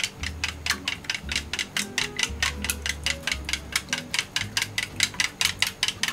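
Chopsticks beating eggs in a glass measuring cup, clicking against the glass in a fast, even rhythm of about six strokes a second.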